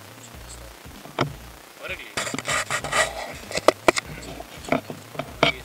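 Small folding portable gas stove being unfolded by hand: a stretch of metal rattling and scraping, then a few sharp metallic clicks as its pot-support arms are swung out and set down.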